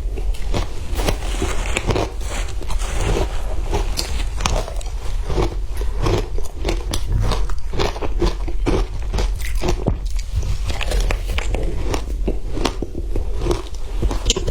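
Matcha ice being bitten and crunched between the teeth: a dense, continuous run of sharp cracks and crunches, several a second.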